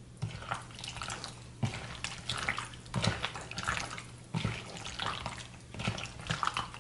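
Wet squelching of a hand kneading raw chicken pieces with egg and spice marinade in a bowl, in repeated irregular squishes about once or twice a second.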